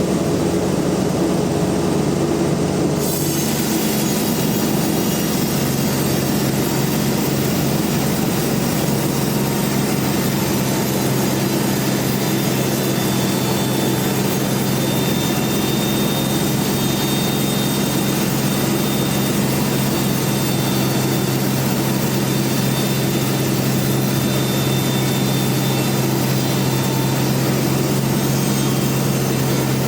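Band sawmill running steadily with a low machine hum, the hiss of the blade sawing through a rain tree log joining about three seconds in and holding.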